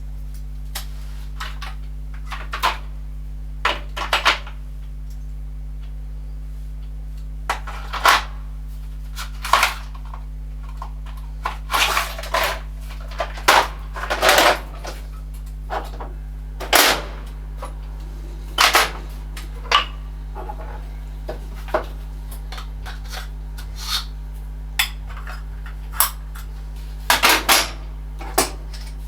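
Metal tools and parts being handled at a workbench: many short, irregular clinks and knocks over a steady low hum.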